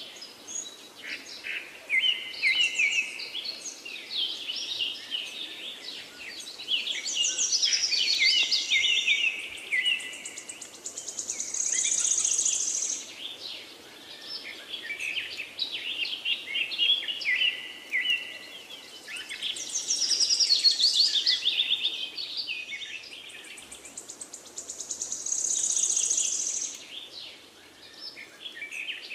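Several songbirds chirping and trilling, with quick falling runs of notes and a buzzy high trill. It is a birdsong background track whose passage repeats about every 14 seconds.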